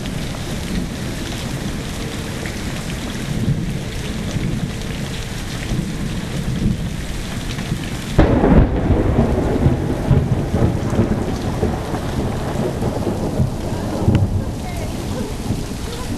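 Steady rain falling during a thunderstorm, with a sudden loud clap of thunder about halfway through whose low rumble lasts several seconds.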